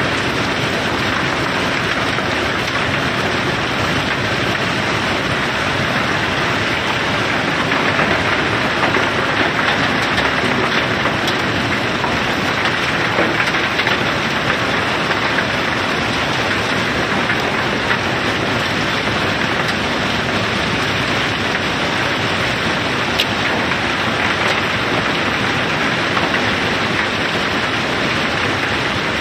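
River pebbles pouring down through a barge's unloading slot, a continuous dense rattle of stones knocking together, with an occasional sharper knock.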